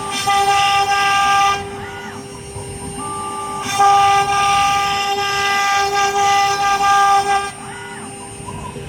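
AKM2040 CNC wood router running: a steady spindle whine under pitched whines from the axis drive motors, which start and stop with short rising and falling glides as the machine moves between positions.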